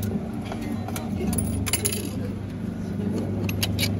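Souvenir medal press machine running with a steady low motor hum, with sharp metallic clinks about a third of the way in and again near the end as the medal blank drops into the press and the pressed medal moves through.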